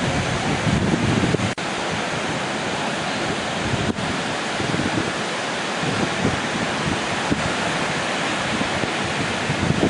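Steady rush of breaking surf with wind buffeting the microphone in low gusts; the sound cuts out for an instant about a second and a half in.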